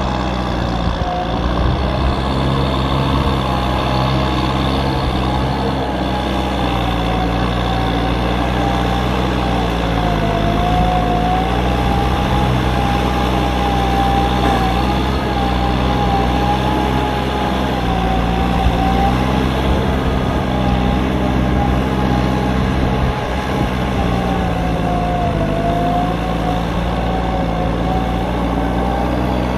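Kubota M9540 tractor's diesel engine running steadily, with a high whine riding over the engine note; the pitch dips briefly about ten seconds in and again near the end.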